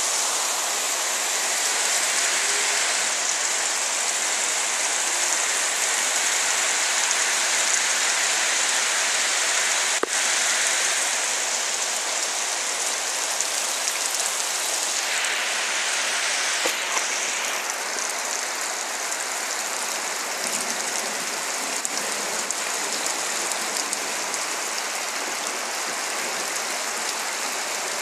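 Steady rain, an even hiss, with a single click about ten seconds in and its tone changing a little past halfway.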